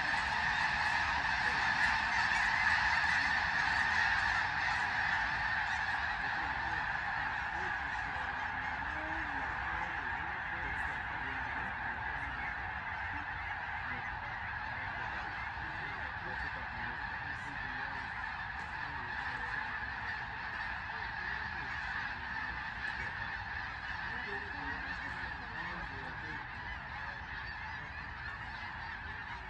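A flock of snow geese calling together in a continuous chorus of overlapping honks, gradually growing quieter.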